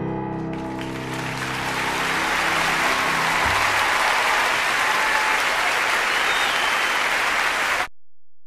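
A crowd applauding, swelling in over the tail of gentle piano music and holding steady, then cutting off abruptly near the end.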